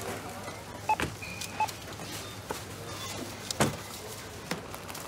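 Supermarket checkout: two short barcode-scanner beeps about a second in, with sharp knocks of groceries being handled on the counter over a steady low hum.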